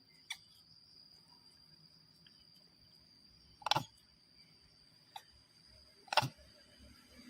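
Steady high-pitched drone of insects, with four short sharp clicks or knocks a second or more apart, the loudest about halfway through and near the end.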